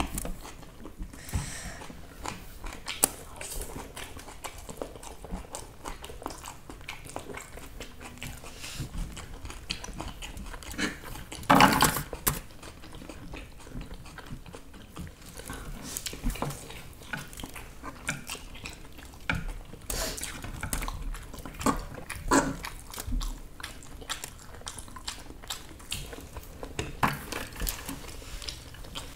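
Masala Maggi noodles being eaten: chewing and biting with scattered clicks of cutlery, and one louder noisy burst about twelve seconds in.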